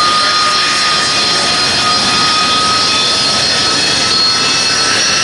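Two-seat Harrier's Pegasus turbofan jet engine running as the jet taxis along the runway: a steady, loud rush of jet noise with a high whine held throughout.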